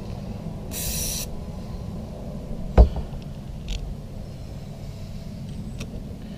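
Hand work on a outboard carburetor as its cover screws are fitted: a short hiss about a second in, one sharp knock a little before the middle, and a few faint clicks, over a steady low rumble.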